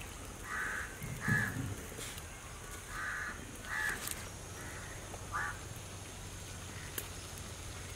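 Crow cawing: about six short calls, loosely paired, spread across a few seconds.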